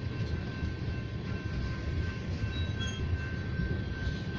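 Loaded freight tank cars rolling past on the rails: a steady low rumble of wheels and cars, with a faint steady high tone over it.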